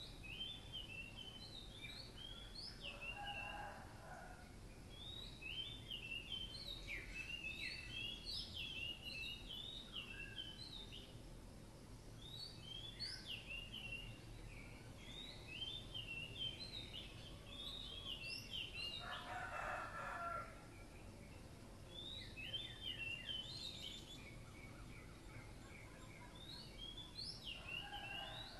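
A rooster crowing faintly three times: about three seconds in, around twenty seconds in, and starting just before the end. Between and over the crows, small birds keep up a rapid high-pitched twittering song.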